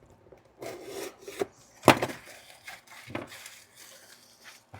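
Cardboard packaging being handled and opened: irregular scraping and rustling with a sharp crack about two seconds in and a few smaller knocks.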